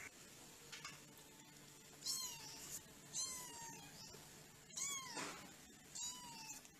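A young kitten mewing four times, starting about two seconds in. Each mew is a short, high-pitched call that rises and then falls in pitch.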